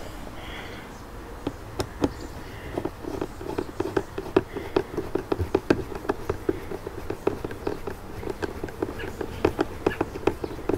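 Phillips screwdriver turning a windshield mounting screw. The screw is snugged down with a dense, irregular run of small clicks and scrapes that starts about a second and a half in.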